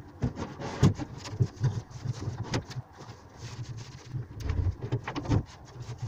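Irregular knocks, bumps and scraping of an 18 mm plywood wardrobe carcass being pushed and shuffled into place on the floor.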